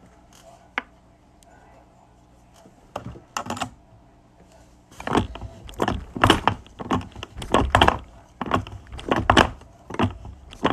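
Hard tools being handled and set down on a metal workbench: a few scattered clicks, then from about five seconds in a run of sharp clattering knocks, about two a second.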